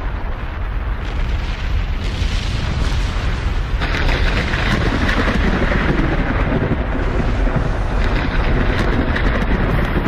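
Recorded volcanic eruption: a loud, continuous rumble with a strong deep end and a hissing noise over it, growing louder about four seconds in.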